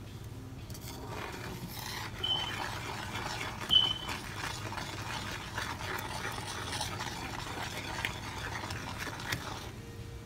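Metal slotted spoon scraping and stirring against the bottom of a metal pan of bubbling butter sauce: a run of grating scrapes with two brief high squeaks, about two and four seconds in.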